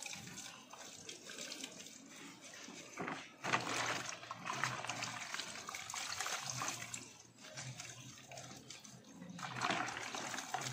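Hands washing instrument-cluster gauge parts in a bucket of soapy water, the water sloshing and splashing. It gets louder about three and a half seconds in and again near the end.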